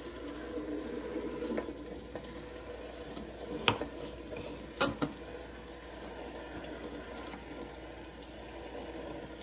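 Nostalgia electric stir popcorn popper heating oil and kernels before any popping: a low, steady sizzle with its stirring arm turning. A few sharp clicks sound about four and five seconds in.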